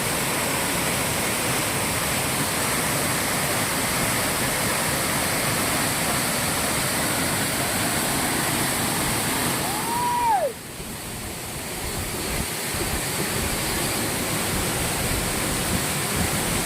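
Steady rush of water from a waterfall. About ten seconds in, a short whistle-like tone rises and falls, then the water sound drops suddenly and builds back up over a few seconds.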